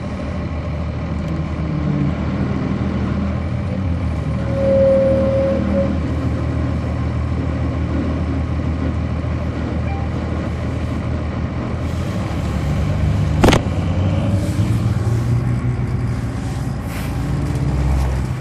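The Cummins ISC inline-six diesel of a 1999 Nova Bus RTS running, heard from on board the bus. A single steady beep about a second long sounds about five seconds in, and a sharp click about thirteen seconds in.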